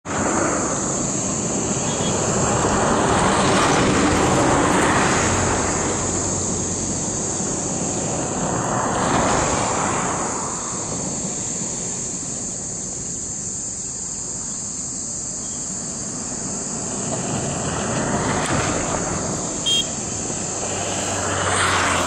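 Several swells of distant engine noise, each rising and fading over a few seconds, over a steady high-pitched insect drone.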